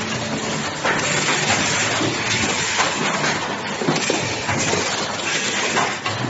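Loud, steady factory-floor noise with scattered knocks and clatter from a pneumatic box-pressing machine as cardboard gift boxes are loaded and pressed.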